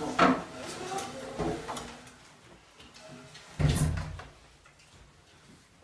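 Chairs scraping and knocking on a tiled floor and desks jostled as a class of students stand up. The loudest scrape comes a little past halfway.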